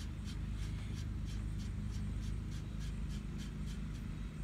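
Light metal-on-metal rubbing as the pusher bolt of an exhaust manifold clamp is turned in by hand until it touches the manifold. Under it is a steady low hum with a faint, even ticking about four times a second.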